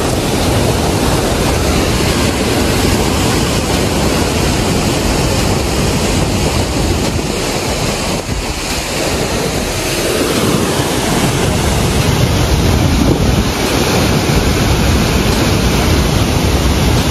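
Waterfall pouring into a fast river pool: a loud, steady rush of falling water.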